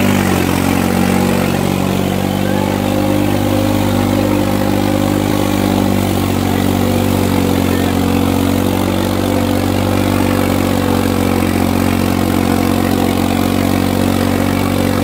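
Modified New Holland tractor's diesel engine running steadily at a low, even speed.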